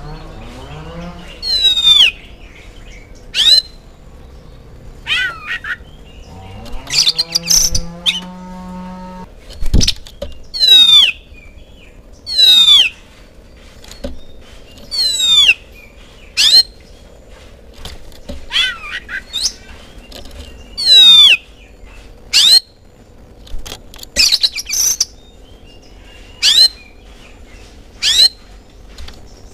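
Oriental magpie-robin singing: loud, short whistled notes that sweep down in pitch, repeated every second or two. Near the middle a long, low animal call sounds in the background, followed by a single thump.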